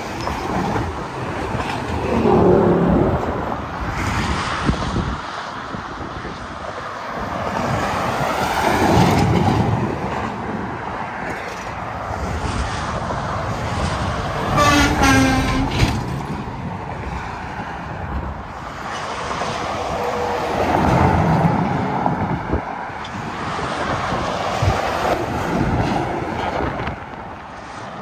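Highway traffic: heavy trucks passing one after another, about five swells in loudness. Near the middle, a short pitched tone that drops in pitch as a vehicle goes by.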